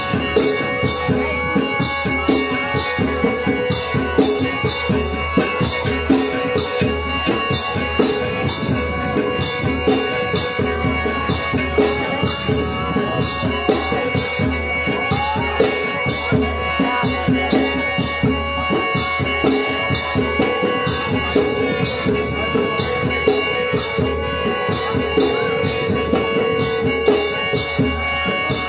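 Music for a Khmer mamuad spirit-medium ritual: an even, fast beat of drum and rattling percussion strokes over steady held tones.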